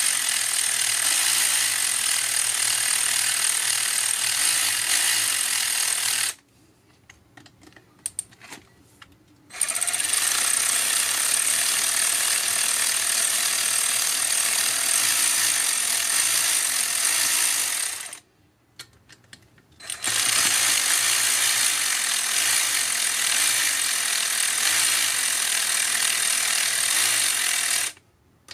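Cordless electric ratchet running in long runs of about eight seconds, spinning out bolts. It stops briefly about six seconds in and again about eighteen seconds in, with a few light clicks in the pauses.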